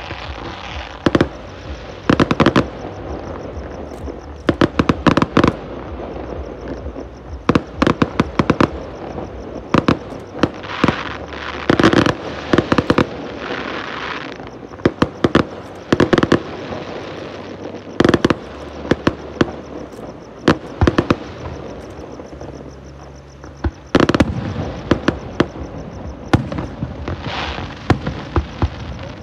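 Aerial fireworks display: shells bursting with sharp bangs, often several in quick succession, over a steady crackle and hiss of burning effects.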